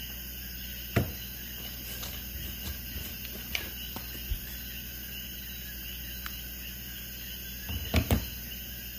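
Soft knocks and clicks of small objects being picked up and set down: one sharp knock about a second in, a few light ones around the middle, and a short cluster of the loudest near the end, over a steady low hum.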